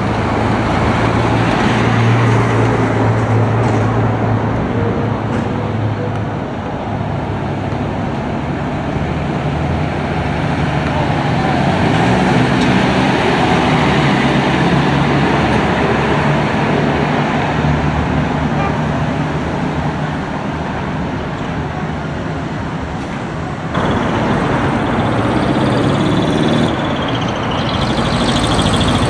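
Large trucks' diesel engines running as the trucks drive slowly past one after another, a steady engine drone whose pitch rises and falls as each truck goes by. The sound changes abruptly about three-quarters of the way through.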